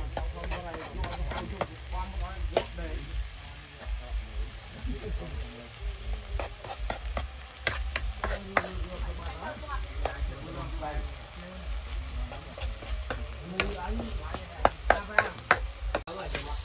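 Food sizzling in hot oil in a steel wok while a metal ladle stirs it, scraping and clinking sharply against the pan, with runs of quick clinks about halfway through and near the end.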